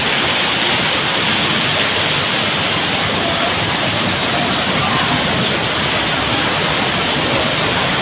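Waterfall and the rocky stream below it, water rushing steadily and loudly over stones.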